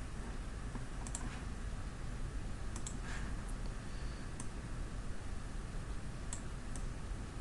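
A few faint, scattered computer-mouse clicks over a steady low hiss from the microphone.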